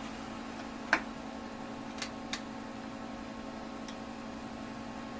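A few sharp light clicks, one about a second in and two close together about two seconds in, over a steady faint hum.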